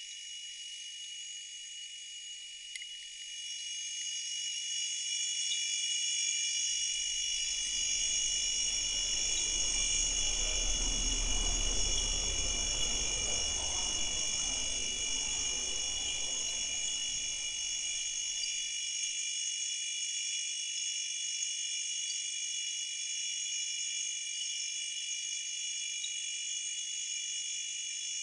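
Steady high-pitched drone made of many close tones, with a chirring, insect-like quality. A low rumbling noise swells in about a quarter of the way through, peaks near the middle and stops abruptly about two-thirds of the way in.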